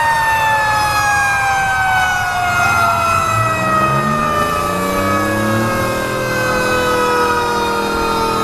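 Fire truck sirens in a parade, winding down with a slowly falling wail, two pitches falling together. A lower rising tone, likely a truck engine, joins about three seconds in.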